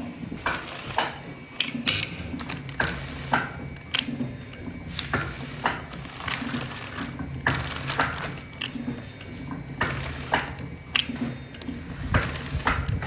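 Automatic liquid pouch packing machine running: a regular cycle of mechanical clacks and clicks, about once every second and a half, over a low steady hum.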